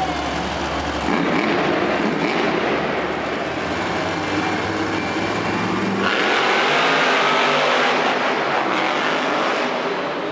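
Monster truck engines running loud at the start line, then opening up to full throttle about six seconds in as the trucks launch, with wavering, rising revs.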